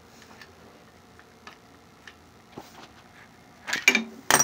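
Light clicks and taps of a brass fitting being worked loose from a copper oil line, then a short louder burst of noise near the end.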